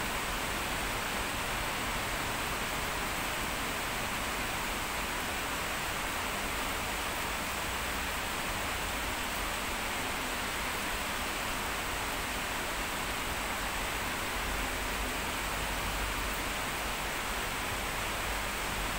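Heavy rain pouring down in a steady, unbroken hiss. A low rumble swells under it in the last few seconds.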